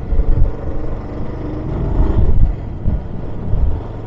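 Motorcycle engine pulling uphill with heavy wind buffeting on a helmet-mounted microphone; the engine note rises about a second and a half in as the bike accelerates.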